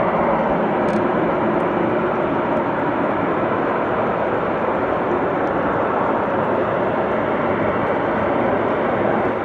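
A loud, steady rushing roar from the sky, an even noise without a clear pitch, heard as an unexplained 'weird sound' overhead.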